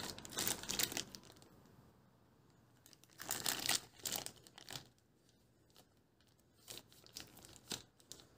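Clear plastic zip-lock bank bags of coins crinkling as they are handled, in short bursts: during the first second, again from about three to five seconds in, and near the end.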